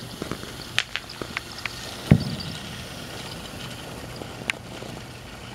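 Ground fountain firework hissing as it sprays sparks, with scattered sharp cracks and pops, the loudest about two seconds in.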